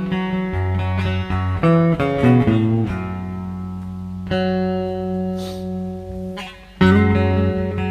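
Three-string resonator guitar with a dog bowl for its resonator, being played: a quick run of plucked notes, then a chord left to ring and fade, struck again hard near the end.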